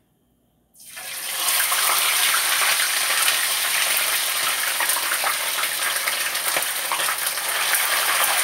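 Seasoned snapper going into a skillet of hot oil: the oil starts sizzling suddenly about a second in and keeps up a loud, steady sizzle with fine crackling spatter.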